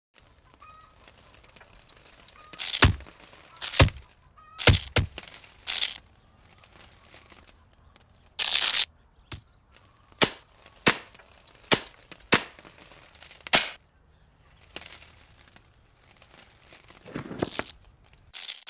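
Porcelain teacups knocking and clacking against each other in a string of about a dozen sharp, irregularly spaced hits, with one longer noisy burst about eight and a half seconds in.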